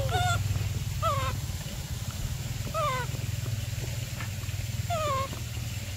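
Young macaque giving short, high, whimpering coo calls, four in a row a second or two apart, each falling in pitch, over a steady low hum.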